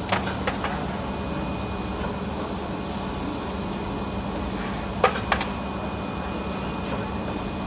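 CNC spring forming machine running with a steady hum while forming enamelled copper wire, with a few sharp clicks near the start and two more about five seconds in.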